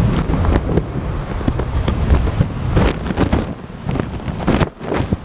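Wind buffeting the camera microphone: a heavy low rumble with short crackling gusts, dropping away briefly near the end.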